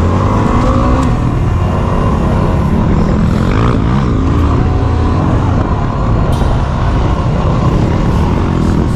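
Yamaha WR250R's single-cylinder four-stroke engine running hard on a dirt trail, its revs rising and falling a few times, under steady wind noise on the helmet-mounted camera.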